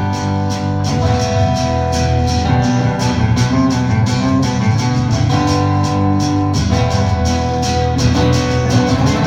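Live acoustic band playing an instrumental passage between verses: guitars strummed in a steady rhythm over held low notes, with no singing.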